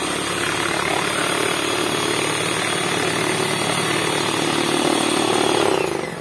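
Kenwood electric hand mixer running steadily at speed, its beaters whisking egg whites in a plastic bowl, with a constant motor whine; it winds down right at the end.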